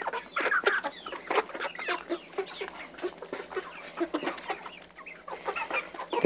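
A flock of chickens clucking and chirping close by as they feed on mealworms, with many quick taps of beaks pecking.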